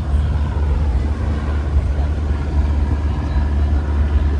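Steady low rumble of outdoor background noise, with faint voices mixed in.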